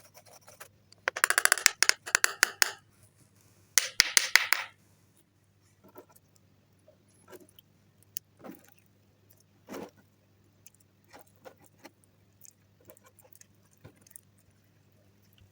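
Two bursts of dense rattling clicks, from makeup and slime being handled, followed by scattered soft sticky clicks and pops.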